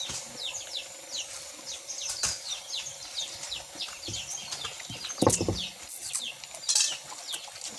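Small birds chirping, many short falling chirps a second, with a few sharp clicks. About five seconds in comes the loudest sound, a wet slurp as a strip of young coconut meat is sucked into the mouth, and another shorter one near the end.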